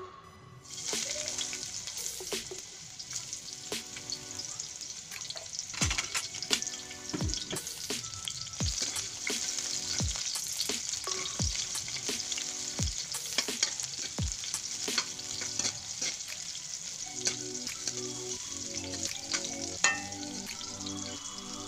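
Onion rings sizzling in hot oil in an aluminium wok: a steady frying hiss, with a metal ladle clinking and scraping against the pan as they are stirred.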